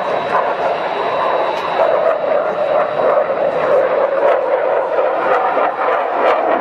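MiG-29 fighter's twin RD-33 turbofan jet engines running loud and steady during a display flight, a continuous rush with irregular sharp crackles.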